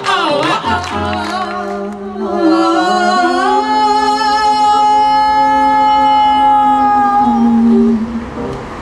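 Live singing with electric keyboard accompaniment, the voices climbing to one long held note from about three seconds in that is released near the end.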